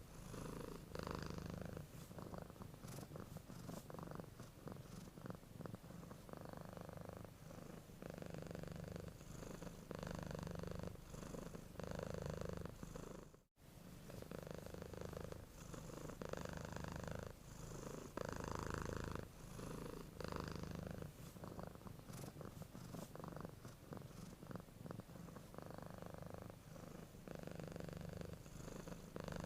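Domestic cat purring steadily, the low rumble swelling and easing in even cycles of about a second or so as it breathes in and out. It cuts out for an instant about halfway through.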